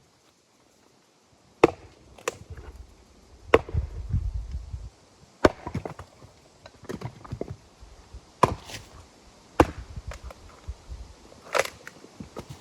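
Firewood being chopped: about seven sharp wooden strikes, one every one to two seconds, with smaller knocks between them.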